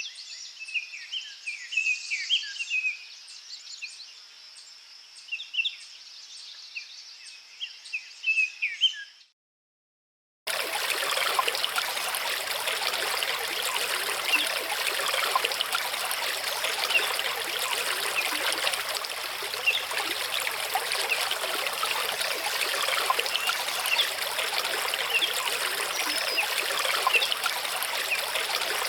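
Small birds chirping for about nine seconds, then a short silence, then a mountain stream running over rocks, steady and continuous.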